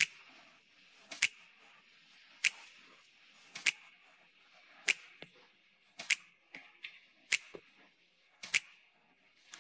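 A slow, regular series of sharp clicks, about one every second and a quarter, each led by a fainter click.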